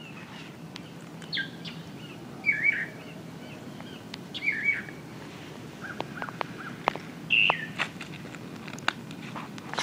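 Songbirds chirping outdoors: a few short, wavering calls a second or two apart over a steady background hush, with several faint sharp clicks in the second half.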